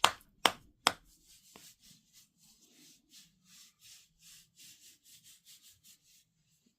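Rhythmic scratching against a dog: a few sharp scratch strokes in the first second, then softer rubbing strokes, about two to three a second, that stop shortly before the end.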